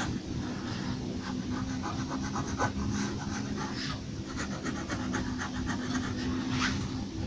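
Pencil strokes scratching on paper in quick repeated runs, over a steady low hum.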